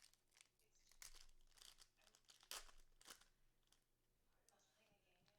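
Faint tearing and crinkling of a trading-card wrapper being opened by hand, in a few short rustling bursts with the loudest about two and a half seconds in, then quieter handling.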